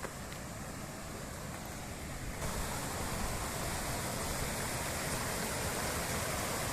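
Waterfall's rushing water, a steady noise that abruptly becomes louder and brighter about two and a half seconds in.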